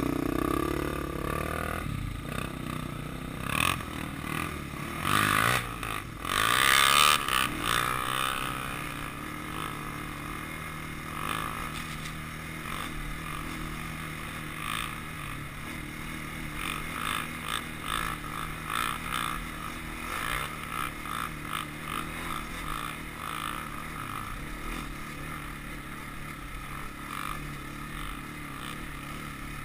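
Honda TRX400EX sport quad's single-cylinder four-stroke engine running under way on a snowy trail, revving up and down several times in the first eight seconds, then running at a steadier speed.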